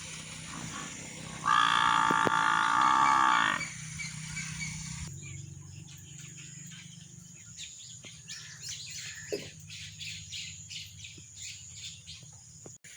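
Small birds chirping repeatedly. About a second and a half in, a loud, steady, pitched call or tone is held for about two seconds.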